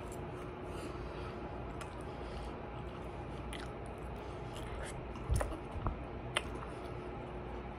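A person chewing food close to the microphone, with a few short clicks and knocks from eating; the loudest comes about five seconds in.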